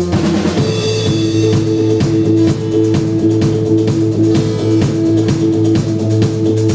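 Rock band playing an instrumental: guitar notes held long over a steady bass line, with regular drum hits.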